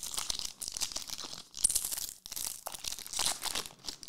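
Foil trading-card pack wrapper crinkling and tearing as it is opened by hand, in a run of crackly rustles.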